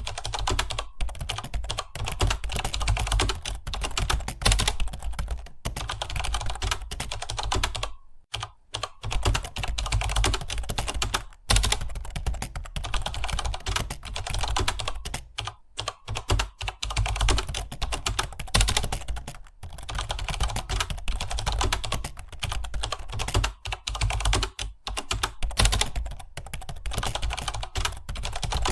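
Fast continuous typing on a computer keyboard, rapid key clicks with short pauses, one of about a second after eight seconds.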